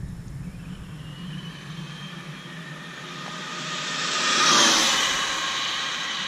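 Traxxas Slash 4x4 RC truck speeding past at full throttle: its electric motor and drivetrain give a high whine over tyre hiss. The sound builds as the truck approaches, is loudest about four and a half seconds in, then fades.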